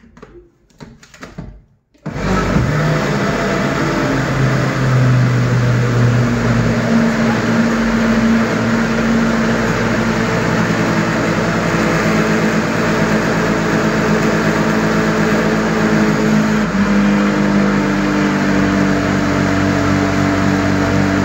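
A few light clicks of the lid being pressed onto a countertop blender, then the blender's motor switches on about two seconds in and runs steadily, puréeing butternut squash soup. Its pitch steps up once, a few seconds before the end.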